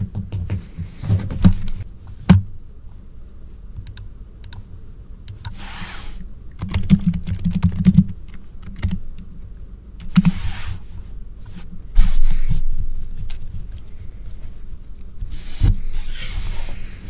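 Computer keyboard typing in short, irregular runs of clicks, with a few heavier dull thumps in between.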